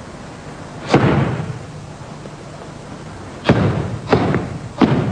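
Bajiquan foot stamps striking a hard gym floor, four sharp thuds: one about a second in, then three in quick succession near the end, each echoing through the large hall.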